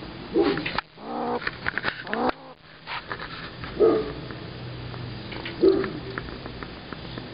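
A trapped, agitated gray squirrel giving a series of short calls a second or two apart, one of them rising in pitch. A run of sharp clicks and rattles falls in the middle.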